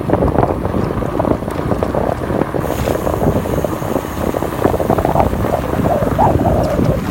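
Wind buffeting the microphone: a loud, gusting rumble that never lets up.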